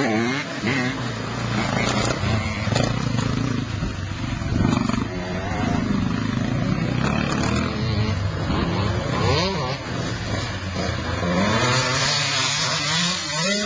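Off-road motorcycle engines revving, the pitch rising and falling again and again, with overlapping revs near the end.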